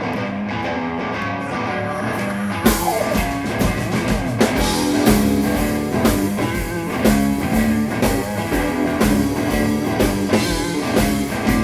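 Blues-rock band playing an instrumental intro: electric guitar lines at first, then drums and bass come in about two and a half seconds in and the full band carries on.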